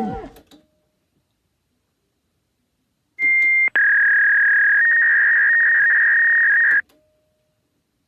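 Electronic beep sound effect starting about three seconds in: a short high beep, then a long steady beep of about three seconds at a slightly lower pitch that cuts off suddenly.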